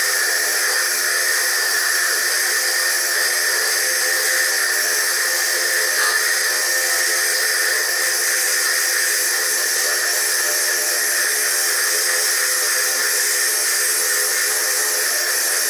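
Foredom bench lathe running a core drill that grinds a hard stone into a sphere: a steady whir with hiss, played back at triple speed.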